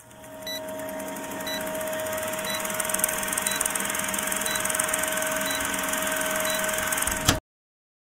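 Old film-projector countdown sound effect: steady projector clatter and hiss over a constant hum, with a short high blip about once a second, cutting off abruptly with a click a little after seven seconds, followed by silence.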